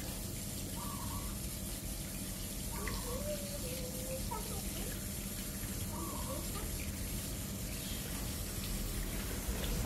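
Water running steadily from a garden hose and splashing over a small dog's fur during a bath.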